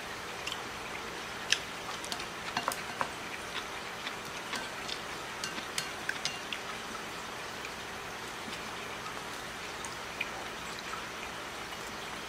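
Chopsticks clicking and tapping against a ceramic bowl while mixing and lifting noodles: a run of small, sharp clicks, busiest in the first half and thinning out later, over a steady background hiss.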